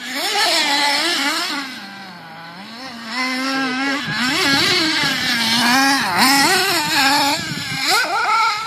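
Radio-controlled buggy's motor revving up and down as it is driven over the jumps of a dirt track. Its pitch keeps climbing and dropping with the throttle, with a quieter lull about two seconds in.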